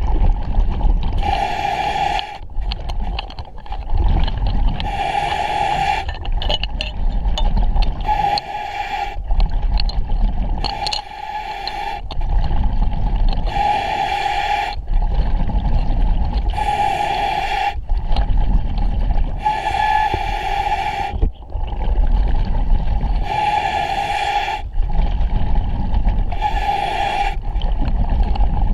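A diver breathing underwater through a regulator: a hissing inhalation about every three seconds, each lasting about a second, with the low rumble of exhaled bubbles between.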